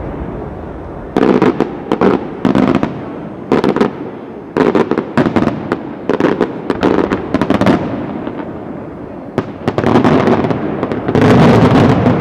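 Aerial firework shells bursting in quick clusters of sharp bangs, each cluster followed by a rolling rumble. Near the end comes a dense, loud run of bursts.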